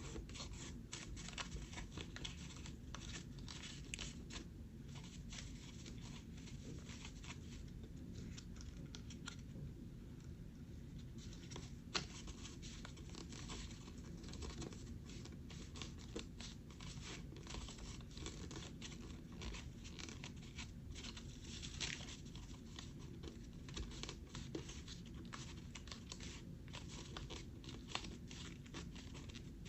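A sheet of paper being folded and creased by hand: soft rustling and crinkling with frequent short, crisp crackles as folds are pressed down, over a steady low hum.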